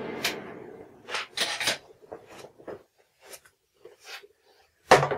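Scattered clicks and knocks of objects being handled, the loudest a sharp knock near the end. A steady hum with a hiss under it dies away in the first second.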